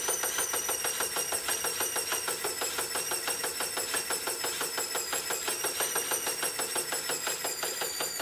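Stationary exercise bike's flywheel whirring with a rapid, even ticking and a steady high whine, beginning to slow right at the end.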